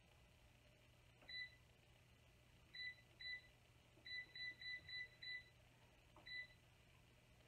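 Digital air fryer's control panel beeping once for each button press as the cooking temperature and time are set: nine short, high beeps, irregularly spaced, with a quick run of five a little past the middle.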